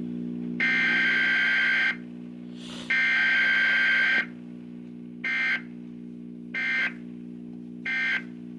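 Emergency Alert System SAME data tones from an EAS encoder during a required weekly test. The last two of the three header bursts, each just over a second long, are followed by three short end-of-message bursts about 1.3 seconds apart.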